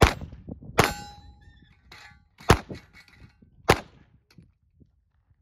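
Four handgun shots fired at a steady pace, the last two about a second apart. After the second shot a steel target rings for about a second and a half.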